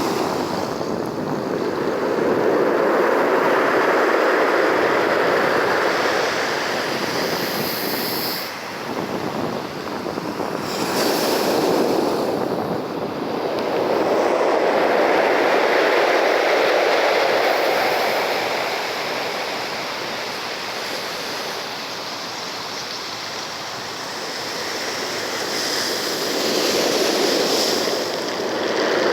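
Sea waves surging and washing in: a continuous rushing that swells and ebbs in about four slow surges.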